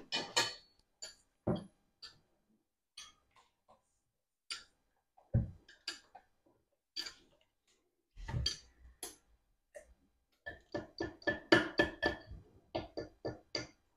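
Spoon knocking and tapping against a blender container while blended potato-and-onion purée is scooped out into a bowl: scattered single knocks, then a quick run of taps near the end.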